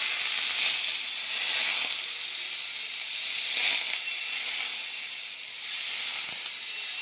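Butter sizzling in a hot stainless-steel frying pan for pancakes: a steady hiss that swells and eases, dipping briefly about five and a half seconds in.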